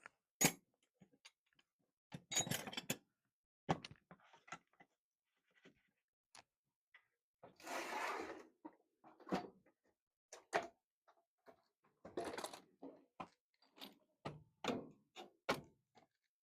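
Loose metal sockets and wrenches clattering and clinking as they are dropped into a toolbox, among scattered knocks and thunks, with a longer rattling clatter about eight seconds in.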